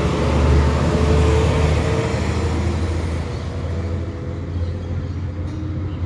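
Steady city road traffic: a low rumble of vehicle engines and tyres, loudest in the first second or two and easing off a little.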